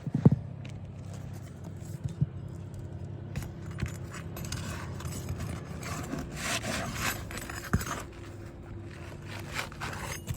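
Asphalt shingle scraping as it is worked and slid under the course above on a roof, with rough rasping that is strongest in the middle and two sharp knocks, one right at the start and one near the end.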